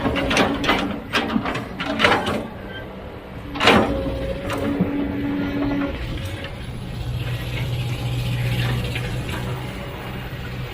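Heavy machinery working: an engine hums under a run of metallic clanks and knocks, the loudest about two and four seconds in. After about six seconds the knocking stops and a steadier, lower engine drone takes over.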